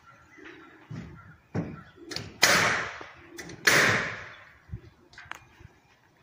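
Building-site work noise: a few dull thumps, then two loud crashes about a second and a half apart midway through, each dying away over most of a second.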